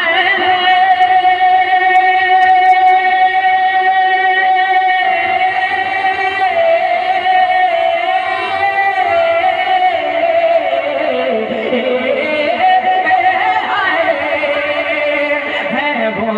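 A man's voice singing a naat, holding one long high note for about ten seconds. Past the middle it drops in wavering turns to a lower pitch, then climbs back up near the end.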